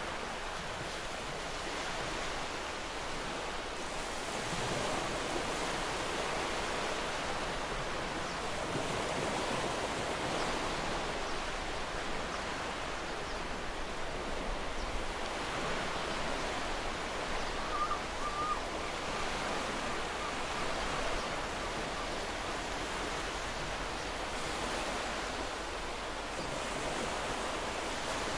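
Steady wash of sea waves on a shore, swelling and easing slowly, with a short faint chirp about eighteen seconds in.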